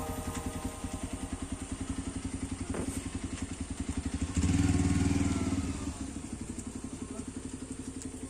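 A small engine running at idle with a rapid, even putter. It grows louder for about a second and a half in the middle, then eases off.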